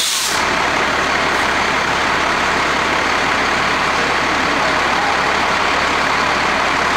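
Fire-department tanker truck's diesel engine running as it rolls slowly past, a steady noise, with a short hiss right at the start.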